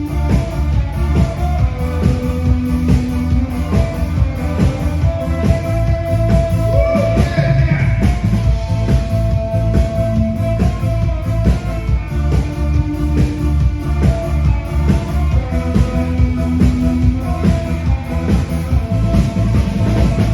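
A song performed with a singer holding long notes over accompaniment with a steady drum beat and heavy bass.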